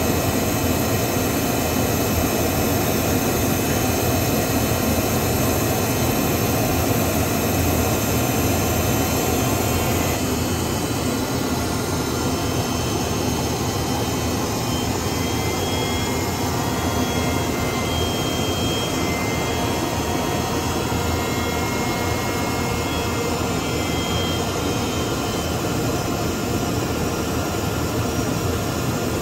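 Steady jet engine and rushing-air noise heard from inside a jet fighter's cockpit in flight. Faint high whistling tones come and go over the constant noise, which drops slightly about ten seconds in.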